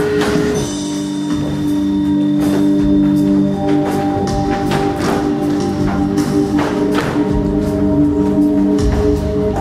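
Music with long held tones and a run of sharp percussive hits; a new higher note comes in about three and a half seconds in.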